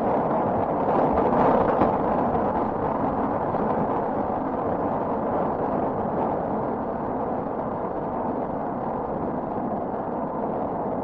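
Thunder rumbling continuously, swelling a little about a second in and then slowly easing off.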